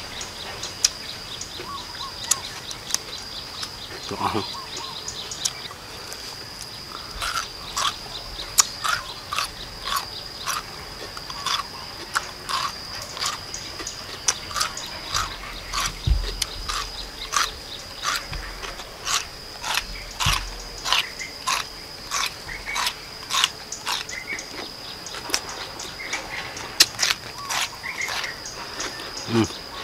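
Crunchy chewing of raw chayote fruit, biting and munching the firm flesh at about two crunches a second. A steady high-pitched whine runs underneath.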